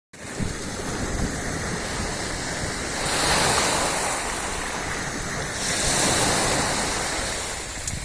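Sea waves washing onto the shore, swelling twice about three seconds apart, with wind buffeting the microphone.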